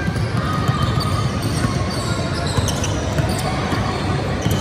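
A steady low rumble with faint high ticks and tones above it.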